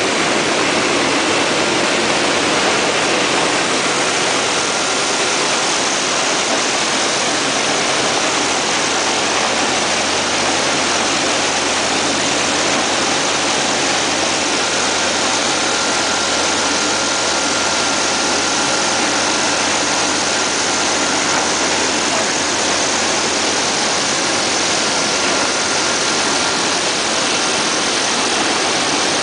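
Single-facer corrugated cardboard machine line running: a steady, loud rushing machine noise over a low hum, with a faint high whine joining about halfway.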